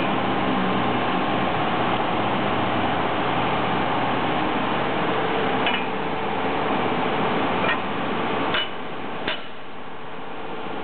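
Steady hum of a paper guillotine running, with four sharp metal clicks in the second half as a hand tool works at the bolts of the blade bar. The hum gets quieter after the third click.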